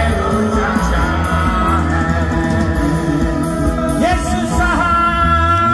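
A Hindi Christian worship chorus played by a band through a PA, with strong steady bass and held chords. A voice sings over it with a few sliding notes near the end.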